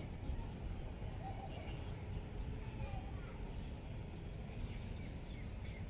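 Small birds chirping again and again over a steady low wind rumble, with faint voices of people in the distance.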